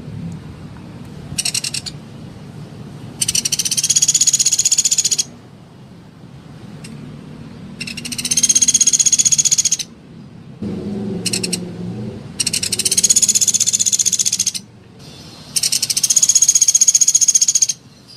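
Sunda pygmy woodpecker (pelatuk beras) calling: repeated high, rapid trilling rattles of about two seconds each, four in a row, with a couple of brief short trills between them.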